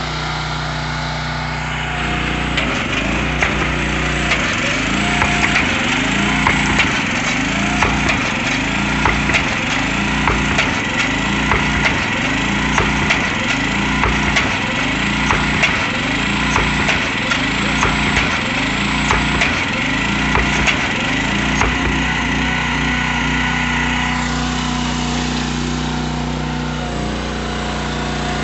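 Automated SPT drilling rig's trip hammer striking over and over, a little over one blow a second, over the steady running of the small engine that drives the rig's hydraulics. The blows stop a few seconds before the end while the engine runs on.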